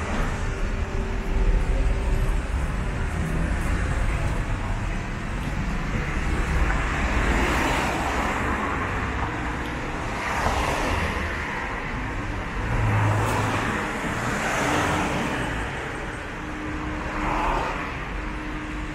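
Road traffic running steadily, with several cars passing close by, each swelling up and fading away.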